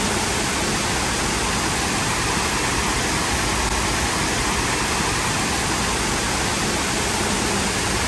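Water cascading down the stepped concrete terraces of a sunken fountain pool, a steady, even rush.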